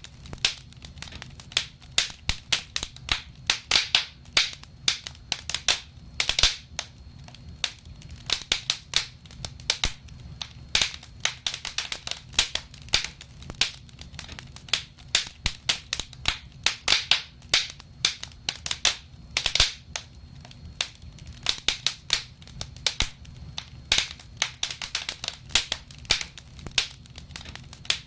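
Wood fire in a fireplace crackling, with frequent sharp pops at irregular intervals over a low steady rumble.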